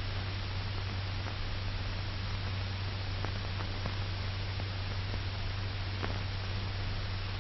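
Old film soundtrack noise: a steady hiss with a low hum under it and a few faint crackles.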